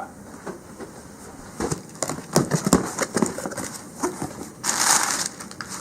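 Cardboard shipping box being opened by hand: a run of scrapes and clicks, then a short burst of rustling and tearing near the end.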